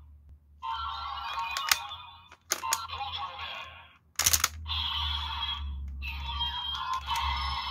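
An electronic toy weapon plays music and sound effects through its small built-in speaker, in stretches with short gaps. Sharp plastic clicks come between them as a character disc is loaded and the blade is snapped into place, the loudest about four seconds in.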